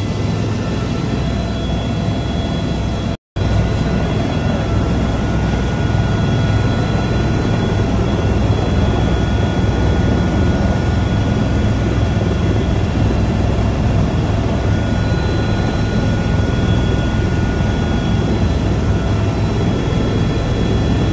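Helicopter engine and rotor noise heard from inside the cabin: a loud, steady rumble with a thin high whine over it. It cuts out for a split second about three seconds in.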